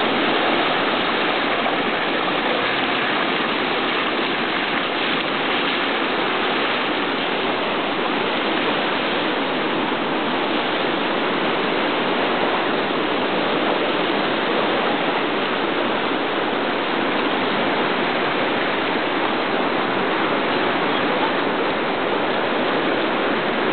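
Floodwater of a swollen river rushing steadily past a low concrete crossing.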